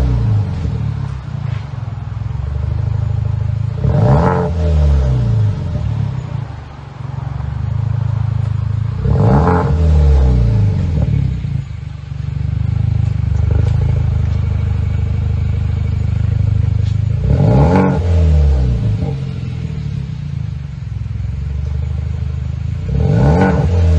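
2017 Hyundai Veloster's four-cylinder engine heard through an exhaust with the rear muffler deleted and a free-flow Y pipe. It idles and is revved four times, each rev climbing and falling back to idle within a couple of seconds.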